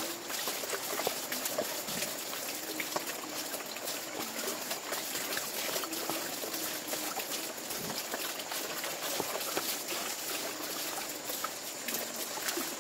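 Water dribbling and sloshing in a plastic basin as hands move among live fish, with many small splashes and clicks.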